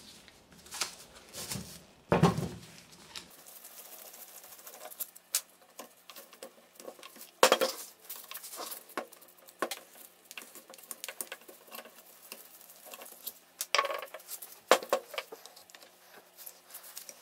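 Screwdriver and small metal parts clicking, scraping and clinking on a workbench as the Phillips screws are taken out of a starter motor's gear housing, with a few louder knocks about 2, 7 and 14 seconds in.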